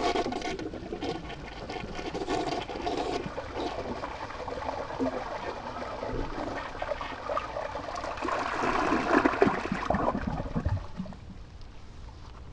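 Toilet flushing normally: water rushes down the bowl for about ten seconds, then dies down to a quieter trickle as the tank refills.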